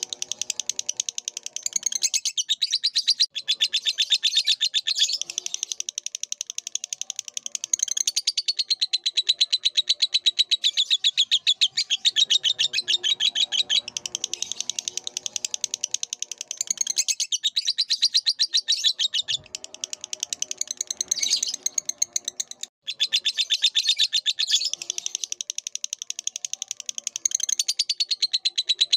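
Lovebird singing: a long, fast, continuous chatter of high squeaky notes, broken only by a few brief pauses.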